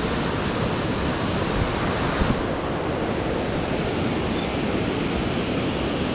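Steady rushing of the Tallulah River's falling water in the gorge below, mixed with wind on the microphone.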